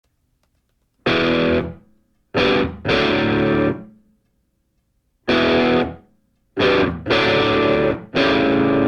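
Music: distorted electric guitar playing short chords in stop-start blocks with brief silences between them, beginning about a second in.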